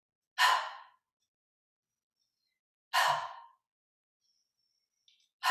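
A woman's forceful exhales, one with each twist of the torso: three short breathy puffs about two and a half seconds apart, each starting sharply and fading quickly.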